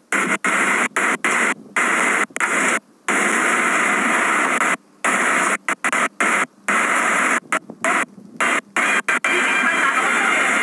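Loud steady rushing noise of an airliner cabin that cuts out abruptly to silence many times, like a signal dropping in and out.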